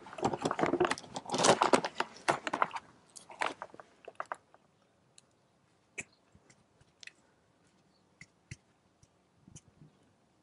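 Gloved hands handling metal parts at an open Dana 35C rear differential. A run of crunchy scraping and rattling lasts about three seconds, followed by scattered light metallic clicks.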